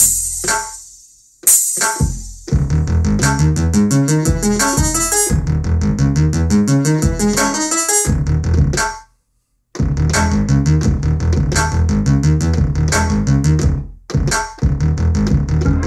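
Hip-hop beat triggered live from sample pads: keyboard and synth chord stabs over a drum-machine groove. Two lone hits open it, then the beat settles in. It cuts to silence for about a second near the middle before coming back in.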